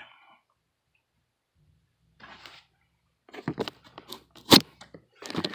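Close-up handling noise: after about two seconds of quiet comes a brief rustle, then irregular crinkling and clicking, with one sharp, loud click about four and a half seconds in.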